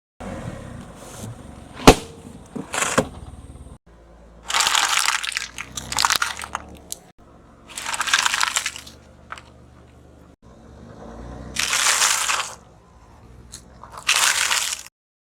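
Objects crunching and cracking as a car's tyre rolls over and crushes them: a sharp crack about two seconds in, then about five loud crunches of around a second each, with abrupt cuts between them.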